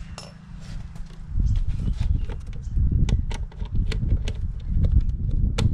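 A run of sharp clicks and taps from hands working at a motorcycle's rear seat cowl and plastic panels. Under them, from about a second in, a loud irregular low rumble is on the microphone.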